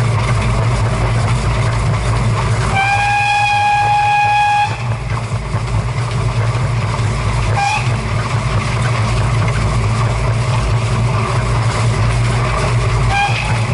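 OL49 steam locomotive running at speed, its wheels and motion making a steady loud rumble, with one long steam whistle blast of about two seconds about three seconds in. Two brief toots of the whistle follow, one midway and one near the end.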